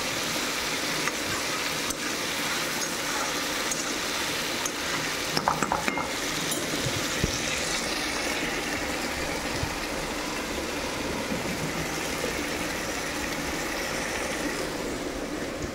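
Onions, tomatoes, green chillies and peanuts sizzling steadily as they fry in oil in a kadai, with a few short clicks about five to six seconds in.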